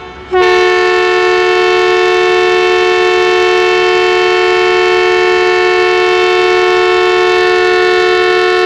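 Diesel locomotive ZCU-30-6318's air horn sounding its departure whistle: one long, steady two-note blast that starts a moment in and is still sounding at the end, very loud.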